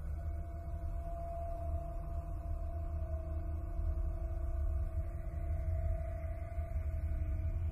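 Space-recorded electromagnetic emissions converted into sound: a steady deep rumble with a held tone above it and a fainter lower tone, unchanging throughout.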